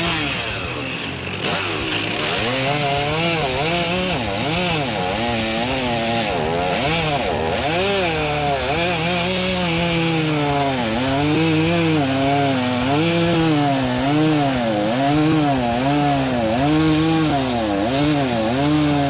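Two-stroke chainsaw engine revving up and down, its pitch rising and falling about once a second, over a steady hiss.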